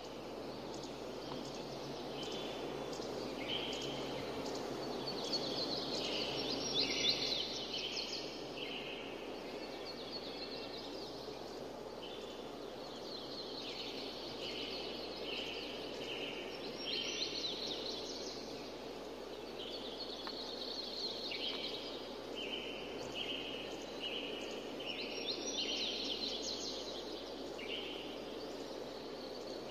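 Birds chirping in short repeated calls over a steady rushing background noise.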